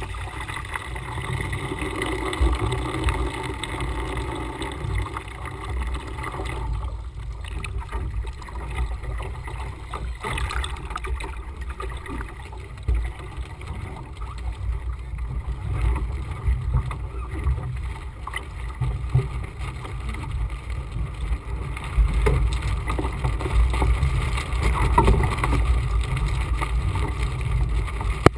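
Water rushing and splashing along the hull and side deck of a hard-heeled Laser 2000 sailing dinghy under way, with wind buffeting the microphone as a constant low rumble.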